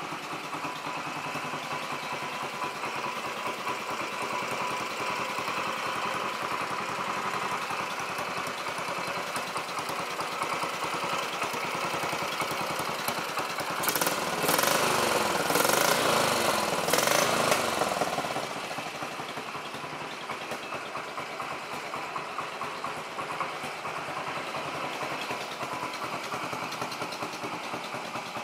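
Royal Enfield Bullet 500's single-cylinder four-stroke engine idling steadily. It is revved a few times in the middle, rising and falling in pitch and louder for about four seconds, then settles back to idle.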